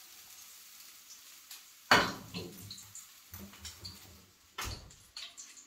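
A metal frying pan clanks down onto the oven's wire rack about two seconds in, then the drop-down door of a Creda Cadenza oven knocks shut near the end.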